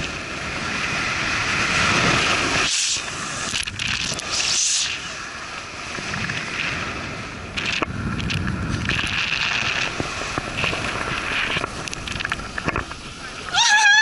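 Inflatable snow tube sliding fast down a groomed snow lane: a steady rushing scrape of the tube over packed snow, with wind buffeting the microphone. Near the end a woman's high, wavering voice cuts in.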